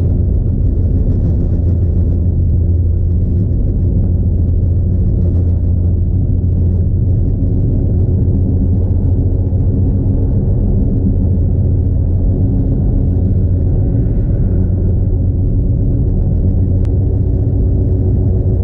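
Steady low rumble of a car's engine and tyres on a snow-covered road, heard from inside the cabin.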